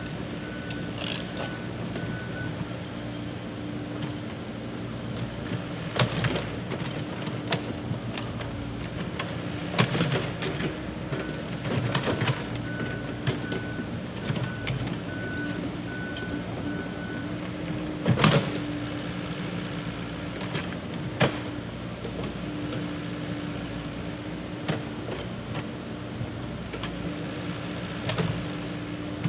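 Excavator engine running steadily, with scattered metallic knocks and clanks, the loudest a little past the middle. A high beep repeats about twice a second near the start and again for a few seconds in the middle.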